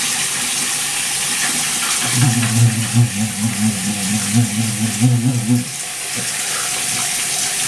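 Water running steadily from a tap into a sink. From about two seconds in, a low, wavering hum sounds over it for about three and a half seconds, then stops.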